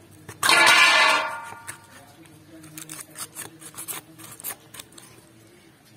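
Kitchen scissors snipping and cutting through a raw catla fish head: a run of faint, irregular snips and clicks. A brief pitched cry, about a second long, starts about half a second in and is the loudest sound.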